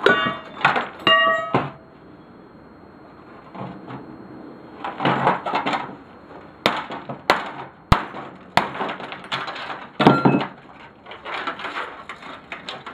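Scrap parts of an electric lawnmower being pulled apart and handled, plastic and metal clattering. A piece of steel clinks with a ringing tone twice in the first second and a half. Four sharp cracks come about half a second apart in the middle.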